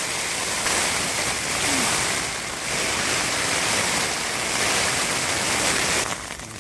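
Thunderstorm's heavy rain driven by very strong wind gusts, a dense rushing noise that swells and eases every second or two, then drops off suddenly near the end.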